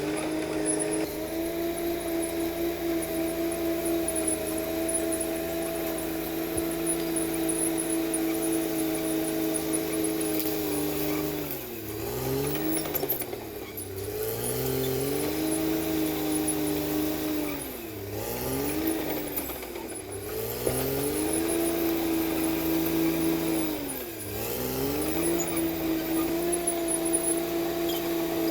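Diesel engine of a CAT D6R XL crawler bulldozer running hard at high revs. Its pitch briefly sags and climbs back up about five times, in two pairs about halfway through and once more near the end.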